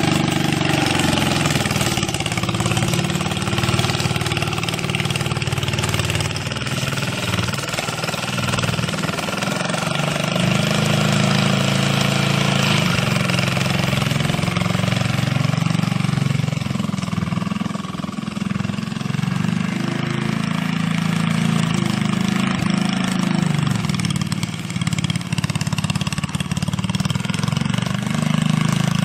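Small engine of a Merry Tiller converted into a garden tractor, running steadily, its pitch rising and falling a little.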